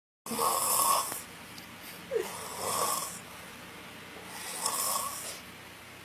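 A drunk young man snoring through his open mouth while asleep on his back: three long snores, about two seconds apart.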